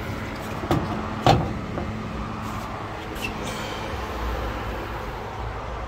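Hard plastic knocks and clicks from a Ryobi battery fan's casing as it is lifted off a ceiling hook and handled: two sharp knocks about a second in, the second louder, then a few fainter clicks, over a steady low hum.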